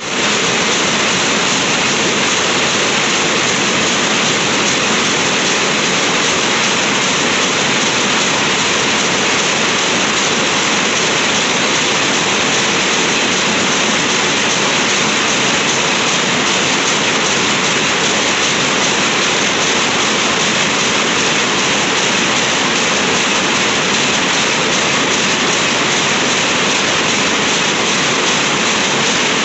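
Many power looms running together in a weaving shed: a loud, dense, unbroken mechanical clatter.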